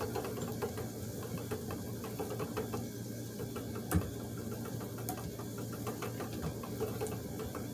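Treadle spinning wheel running: a steady whir from the spinning flyer and bobbin, with many light ticks and knocks from the wheel's moving parts and one sharper knock about four seconds in.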